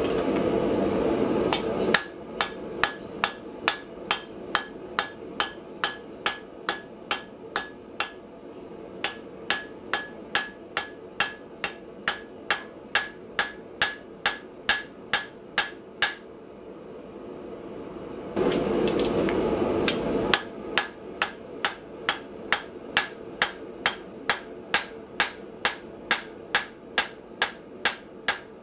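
Hand-hammer blows on red-hot steel on an anvil, fullering the blade bevels with a cross-peen hammer: a steady rhythm of about two to three strikes a second, each with a short anvil ring. The hammering stops twice for a couple of seconds of loud rushing noise, at the start and about two-thirds of the way through.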